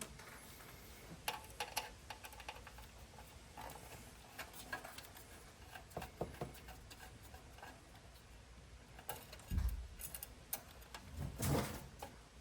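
Light scattered clicks and ticks of a fine Phillips screwdriver and tiny screws being worked out of a car radio's metal cover plate, with a louder knock about two thirds of the way in and a brief handling sound near the end.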